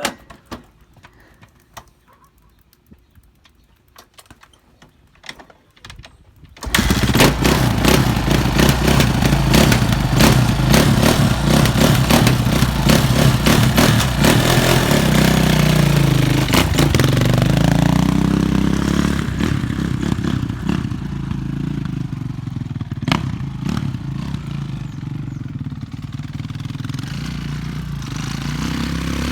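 Suzuki RM-Z450's single-cylinder four-stroke engine starting abruptly about seven seconds in after a few quiet clicks, then running. Its pitch dips and climbs again about ten seconds later before it settles to a lower, steadier idle.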